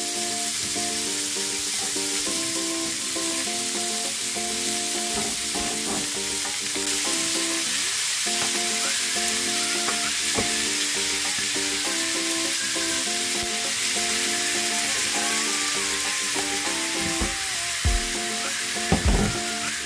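Pork slices and maitake mushrooms sizzling in a frying pan, a steady frying hiss, with a few knocks near the end. Light background music with held notes plays over it.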